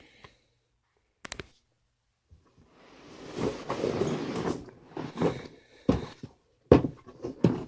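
A 140-piece tool set case being opened: a quick double click of the latches, then a longer scraping rustle as the case is handled and the lid is swung open, followed by several sharp knocks and clicks.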